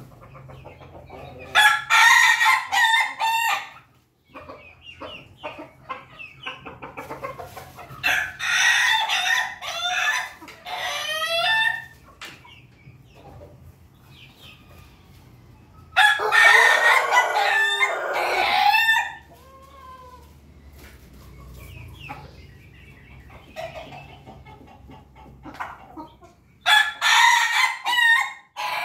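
Roosters (pelung, ketawa and bangkok crossbreeds) crowing four times, each crow a few seconds long, with the second ending in a wavering, warbling tail. Softer clucking comes between the crows.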